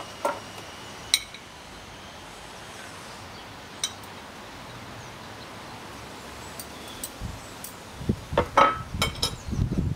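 Metal ice tongs and ice cubes clinking against a small plate and a drinking glass: a few sharp single clinks, seconds apart. Near the end there is a quick run of clinks and dull knocks as a glass bottle is taken up from the wooden table.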